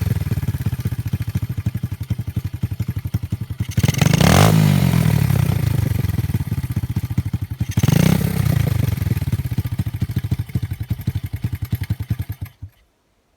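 Pit bike's single-cylinder four-stroke engine running with an uneven pulsing beat and revved briefly twice, about four and eight seconds in. It cuts out suddenly near the end.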